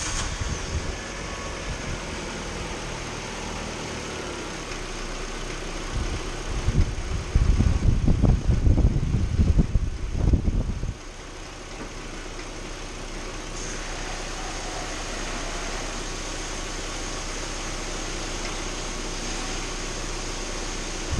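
Proton Saga's engine idling steadily, with a louder, rougher stretch between about six and eleven seconds in.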